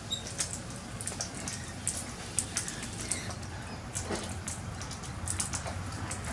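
Light rain falling, with many short, sharp high ticks scattered through it.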